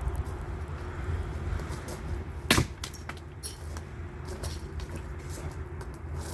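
Firewood being split: one sharp strike into wood about two and a half seconds in, followed by a few lighter cracks and clicks, over a steady low rumble.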